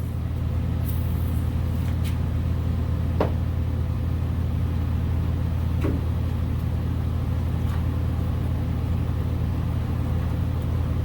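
A steady low machine hum, with a few faint clicks and taps of metal parts as the bumper shock is worked into its mount.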